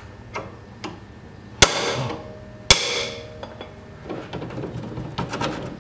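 Two sharp metal-on-metal hammer blows about a second apart, each ringing briefly, driving the bolt out of the strut's lower mount on the front suspension knuckle. Light metallic clicks follow near the end as the loosened bolt is worked free by hand.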